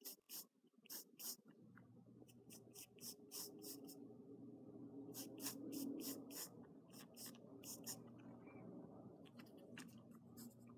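Wooden pencil sketching on sketchbook paper: short scratchy strokes in quick runs, with brief pauses between them. A faint steady low hum sits behind from about two seconds in.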